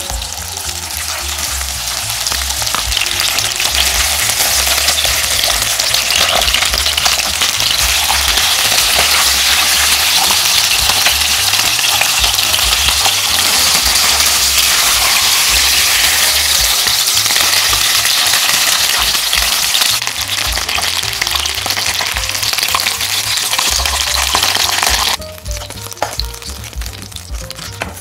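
Two whole crucian carp frying in hot oil in a pan: a dense, steady sizzle that builds over the first few seconds. It cuts off abruptly near the end.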